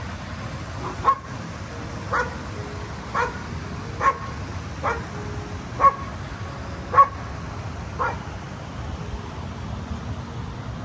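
A dog barking about nine times, roughly once a second, then stopping about eight seconds in.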